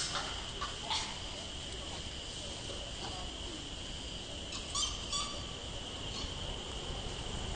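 Steady, high-pitched insect drone, with a few short high chirps about five seconds in.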